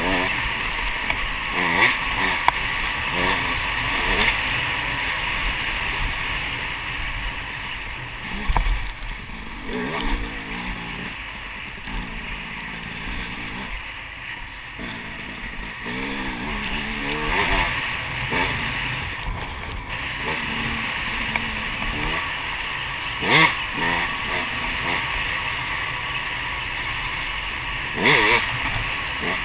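Dirt bike engine ridden along a trail, revving up and down over and over as the rider works the throttle.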